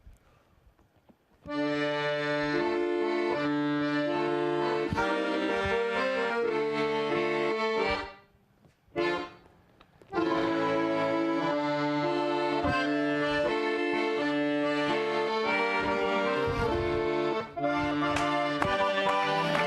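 Accordion playing held chords and a melody. It comes in after about a second and a half of quiet, stops for about two seconds near the middle, then plays on.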